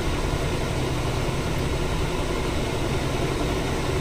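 Steady low machine hum and whir, unchanging throughout, with most of its weight in the bass.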